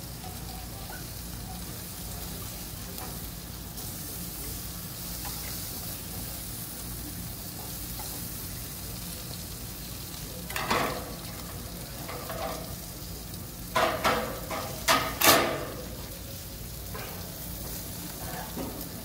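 Steaks sizzling steadily on a gas grill's grates over open flame. Short louder bursts of voices break in twice, a little past the middle.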